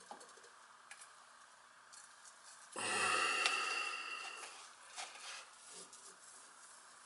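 A PVC drain fitting being pulled off dry-fitted pipes: a rough plastic-on-plastic scrape with a squeak, lasting about a second and a half, about three seconds in. A few light taps and clicks of plastic parts being handled come before and after it.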